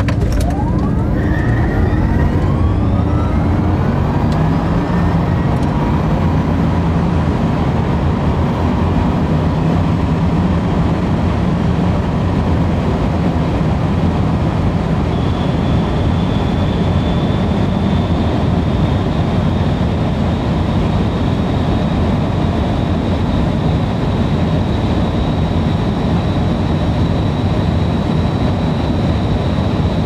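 Onboard sound of a hypercar at full throttle from a standing start to about 240 mph. Rising whines sweep up in the first few seconds, then a heavy, steady roar of wind and tyres carries through, with a thin high whine from about halfway on.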